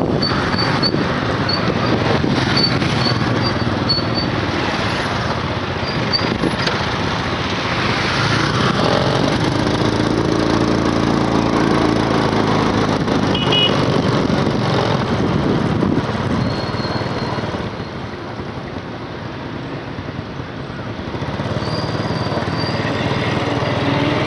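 Road traffic noise: vehicle engines and tyres on the road, with one engine's hum swelling and fading about ten to thirteen seconds in. The noise drops for a few seconds about three quarters of the way through.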